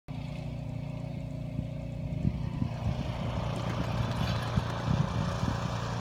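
An engine runs steadily with a low hum. From about two seconds in, boots tramp through deep snow with irregular soft thumps.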